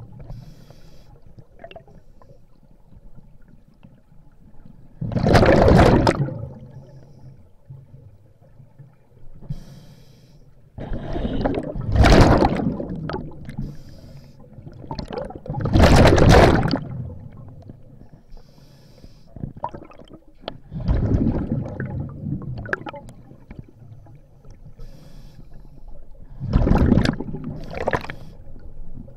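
A scuba diver breathing through a regulator. A rush of exhaled bubbles comes about every four to five seconds, with a faint hiss of inhalation through the demand valve between them.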